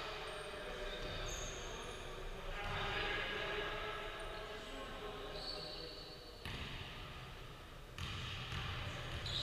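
Basketball bouncing on a hardwood court during a game, with players' voices and the ring of a large gym hall, and two sharper knocks in the second half.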